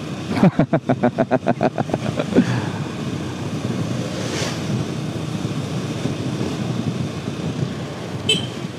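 Steady engine, wind and road noise of a motorcycle riding in traffic. It opens with about two seconds of rapid pulsing, about seven pulses a second, and has a short high beep near the end.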